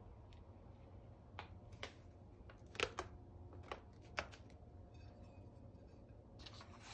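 A handful of light, sharp taps and clicks as a plastic container and a pen are handled on paper on a tabletop, the loudest about three seconds in. A soft rustle of paper being slid or rubbed follows near the end.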